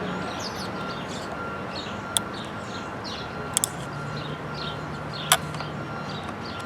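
Steady hum of passing street traffic, with four short sharp clicks from hand tools working at a small clip on the outboard's carburetor linkage; two of the clicks come close together about halfway through.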